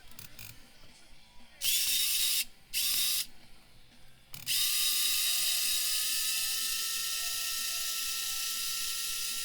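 Small cordless electric screwdriver running: two short bursts, then a steady run of about five seconds with a constant whine, backing out a screw.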